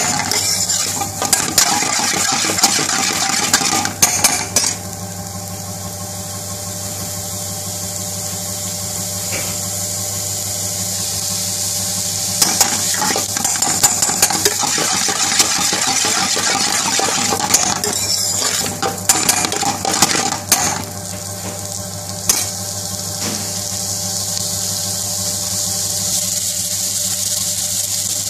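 Chicken tikka pieces and onion sizzling in a black iron skillet, with a metal spoon scraping and clinking against the pan in spells of stirring: at the start, about twelve seconds in, and again around eighteen to twenty-three seconds in. A steady low hum runs underneath.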